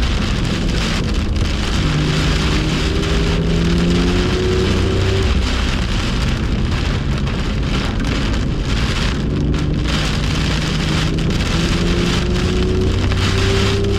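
BMW M2 engine pulling under acceleration, its pitch climbing a few times, beneath a loud, steady rush of heavy rain and wet tyres.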